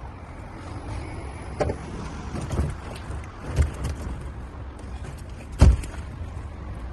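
A few separate dull knocks and thumps from work inside a van's metal load area, over a steady low rumble. The loudest thump comes near the end.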